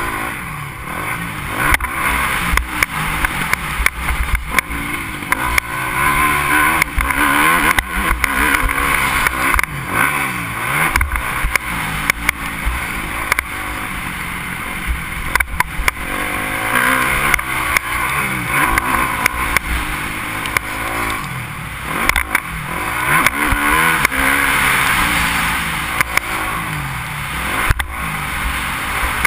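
Yamaha motocross bike engine revving up and falling off over and over as it is ridden hard round a dirt track, heard through a helmet-mounted GoPro. Frequent short knocks throughout.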